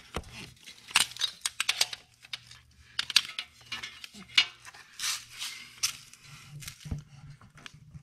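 Handling noise: rustling and scattered sharp clicks and light clinks as hands, a flashlight and metal parts move around a motorcycle's brake pedal linkage, over a faint steady low hum.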